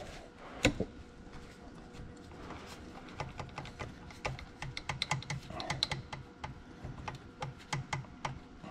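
A flare-nut line wrench clicking and tapping on a tractor's hydraulic brake line fitting as it is worked to break the fitting free. There is one sharp click under a second in, then a run of quick, irregular metal clicks with soft knocks from about three seconds on.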